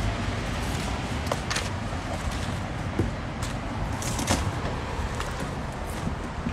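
Scattered clicks and light rattles of straps, buckles and hooks as a Saris Bones trunk-mounted bike rack is unfastened from a car's hatch, over a steady outdoor rumble.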